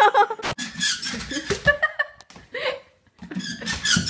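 High-pitched laughter and squealing from onlookers reacting to someone falling.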